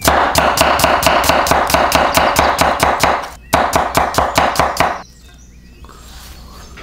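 Hand whisk beating egg whites in a bowl: rapid, even strokes about eight a second with a steady frothy swish between them. There is a short break about three seconds in, and the whisking stops about five seconds in.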